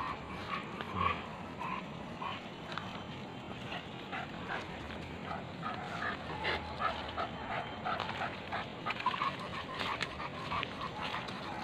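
Leashed hunting dogs giving short whines and sniffs as they pull along the trail, over the rustle of feet through dry leaf litter.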